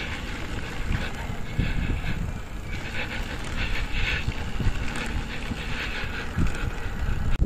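Wind buffeting the microphone with a low rumble from tyres on a paved road, heard while riding a bicycle slowly uphill.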